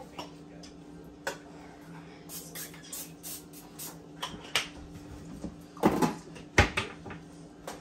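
Kitchen clatter: scattered knocks and clinks of dishes and cupboard doors, with two louder bangs about six and six and a half seconds in, over a steady low appliance hum.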